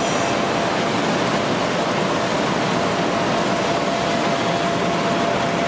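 Electric blower that keeps an inflatable bounce house inflated, running steadily: a constant rushing noise with a thin steady whine through it.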